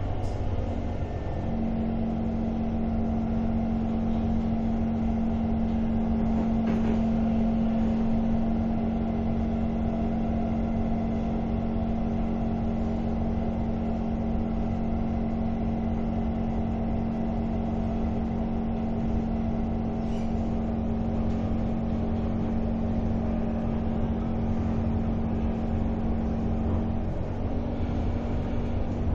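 Interior of a Kawasaki Heavy Industries C151 metro train running at speed: a steady rumble of the wheels on the rails, with a steady electric drive hum. The hum comes in about a second in and cuts off a couple of seconds before the end.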